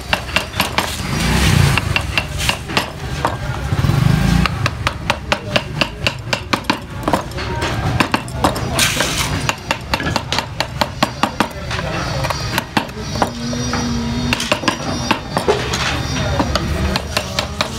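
A flat wooden mallet knocking on the handle of a wood-carving gouge, a fast steady run of sharp taps, about three or four a second, as the gouge cuts into the wood. A low rumble of passing traffic swells twice in the first few seconds.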